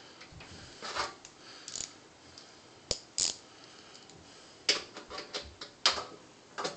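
Irregular metal clicks and short scrapes of a 5 mm socket turning and tightening a motherboard standoff in a computer case.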